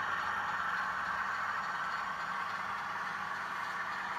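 A steady whir with a faint low hum underneath, holding level with no distinct events.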